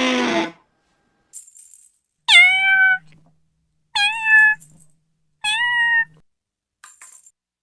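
An animal's call ends about half a second in, followed by three short, high cries about a second and a half apart, each dropping in pitch and then holding.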